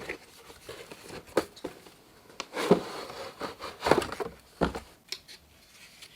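Product packaging being handled and opened: a handful of sharp clicks and knocks with light rustling in between.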